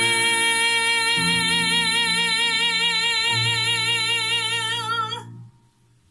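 A woman singing the song's last long note with a wide vibrato over sustained accompaniment chords, the bass moving twice beneath it; voice and accompaniment stop together about five seconds in.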